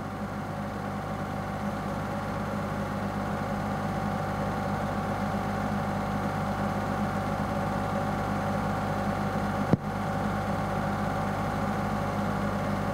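A steady machine-like hum holding constant low tones, with one sharp click about ten seconds in.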